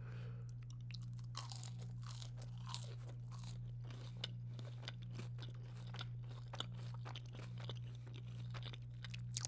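Close-miked chewing and crunching of crispy fried chicken tender and fries, with many small crackles, over a steady low electrical hum.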